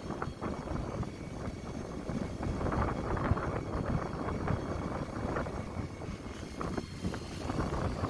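Steady mechanical drone of a fishing boat's engine at sea, with uneven wind noise buffeting the microphone and a few faint high steady tones.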